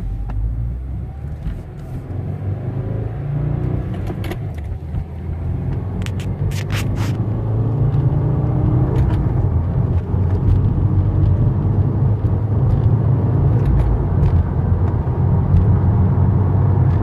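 Inside the cabin of a 2015 Subaru WRX, its turbocharged flat-four and the tyres on the road give a steady low rumble that grows louder as the car picks up speed. A few brief clicks come about six to seven seconds in.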